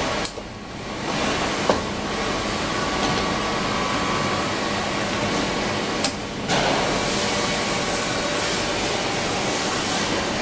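Steady mechanical hum and noise of machinery running in a large workshop hall, with a faint steady tone through it. There are two sharp clicks, about 1.7 and 6 seconds in, and the noise dips briefly after the second.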